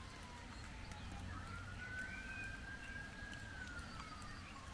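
A faint siren wailing: one tone that slowly falls in pitch, jumps back up a little over a second in, holds, then falls again near the end.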